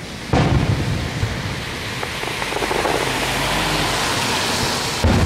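Distant aerial fireworks shells bursting. One boom comes about a third of a second in and rolls away like thunder, then a hiss builds, and a second boom comes near the end.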